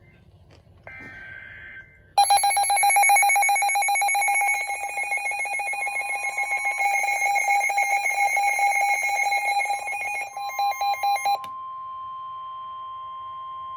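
Weather radio alert going off between broadcast warnings. A short screech of the digital alert header comes first, then a loud, rapidly pulsing electronic alarm beep from the receiver starts about two seconds in and stops a few seconds before the end. The steady NOAA Weather Radio warning tone is left sounding on its own.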